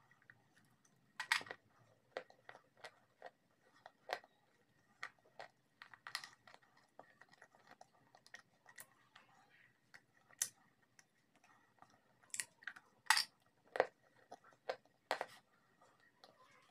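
Close-up crunching of brittle white chalk-like sticks being bitten and chewed: irregular sharp cracks and crunches, with the loudest bites about a second in and several more near the end.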